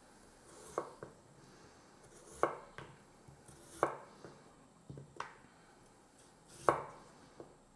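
Chef's knife slicing a potato into rounds, the blade knocking on a wooden cutting board at each cut, about one uneven knock a second.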